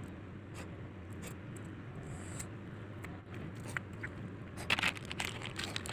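Cast net being gathered and lifted out of wet mud: scraping and rustling of the net with scattered sharp clicks, which come louder and closer together near the end. Under it runs a steady low hum.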